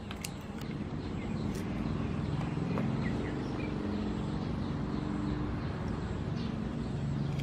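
A few sharp snips of kitchen scissors cutting a river prawn in the first second. Behind them is outdoor ambience: a steady low drone and faint bird chirps.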